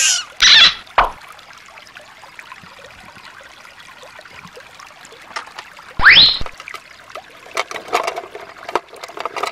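Shallow stream trickling over stones. A loud sudden sound comes about half a second in and another about six seconds in, the second sweeping quickly up in pitch, with a few clicks between.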